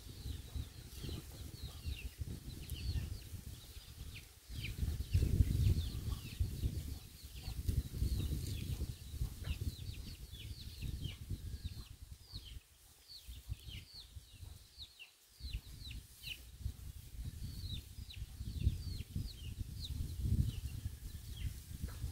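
Birds chirping: many short, high chirps, each falling in pitch, repeating throughout over a gusty low rumble of wind on the microphone.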